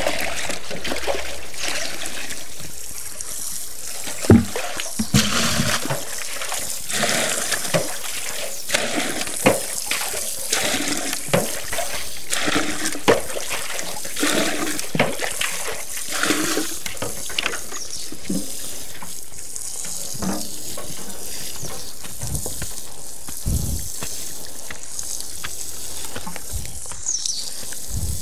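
Water pouring and splashing as buckets are filled and used for watering, with scattered knocks of the buckets being handled and a few dull thumps.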